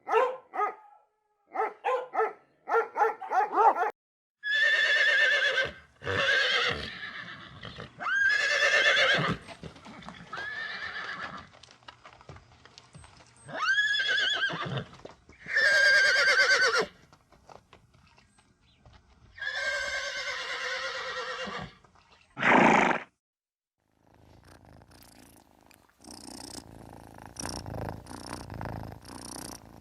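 A horse whinnying again and again, about six long calls each lasting a second or two, starting a few seconds in after a few short barks. A short sharp call follows near the end, then a rough, fast ticking sound.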